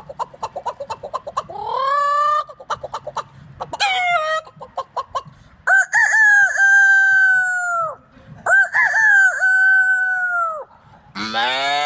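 Human voice imitating chickens: bursts of rapid hen clucking, then two long rooster crows. Near the end a lower drawn-out animal call begins.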